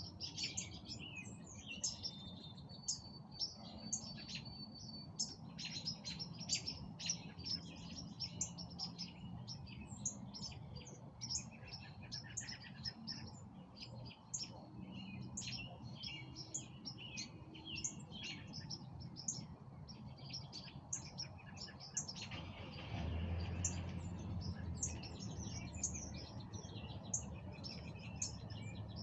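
Evening chorus of several songbirds chirping and calling, many short overlapping chirps with no break. A low steady hum runs underneath and grows louder for a few seconds about two-thirds of the way through.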